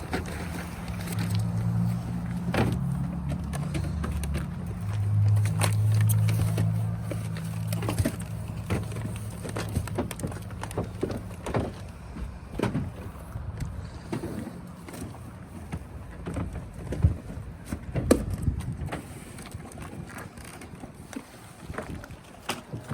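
A vehicle engine running with a low, steady hum for roughly the first half, with a few shifts in pitch. After that come scattered knocks and thumps, like boxes being handled.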